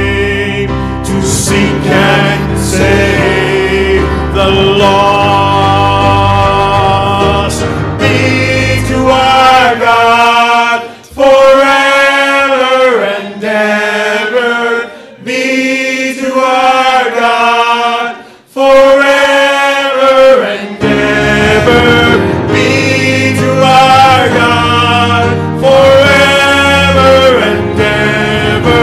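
Church worship team singing a praise song with instrumental accompaniment. The low accompaniment falls away for several stretches in the middle, leaving the voices more exposed, then returns.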